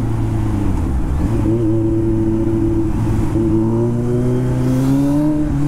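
Kawasaki Z900's inline-four engine and exhaust, heard from the rider's seat while riding in traffic. The engine note dips and picks up again about a second in, then climbs slowly through the second half as the bike accelerates.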